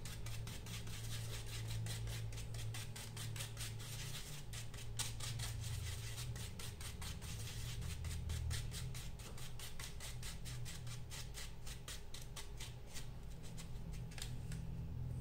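Paintbrush working fabric paint, a quick run of crisp ticks several times a second, over a low steady hum.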